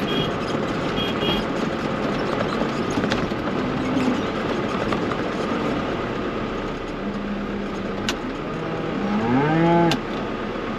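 A cow mooing once near the end, a loud call that rises in pitch and then drops, over the steady running of a tractor engine.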